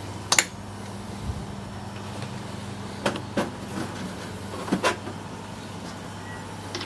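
Sharp knocks and clicks from handling tools and the workpiece at a lathe, over a steady low hum. The loudest knock comes just after the start, with pairs about 3 and 5 seconds in.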